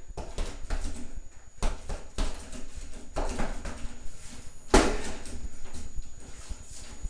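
Punches and kicks landing on a hanging Everlast heavy bag in an irregular series of thuds, the hardest hit about five seconds in.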